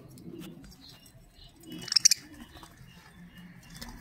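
Young budgerigars in a cage: one short, high chirp about halfway through, with faint scattered ticks and rustling from the birds shifting about.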